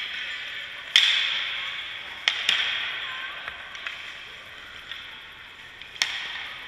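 Sharp cracks of hockey pucks being shot and hitting a goaltender: one about a second in, a quick pair about two and a half seconds in, and another near six seconds. Each is followed by a hiss of skates and pads scraping the ice, fading away in the rink's echo.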